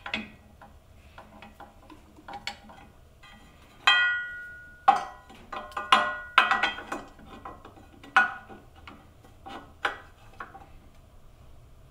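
Irregular metallic clinks and knocks as clamps and metal machine parts are handled and repositioned. Several ring briefly, and the loudest come about four and six seconds in.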